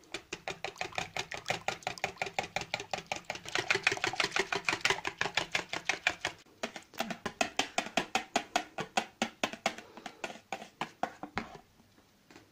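Wire balloon whisk beating cream by hand in a plastic bowl: fast, even clicking and scraping strokes of the wires against the bowl, about six a second. There is a short break just past halfway, and the strokes stop about a second before the end.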